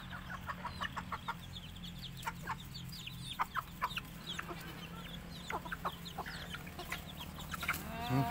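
Free-range chickens clucking and calling, many short, high, falling calls in quick succession, over a steady low hum.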